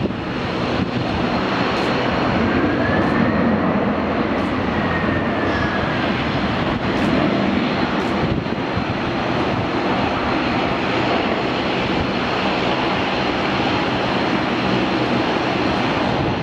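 Boeing 767-300ER jet airliner on its landing roll: a loud, steady rush of jet engine noise that builds over the first second and then holds.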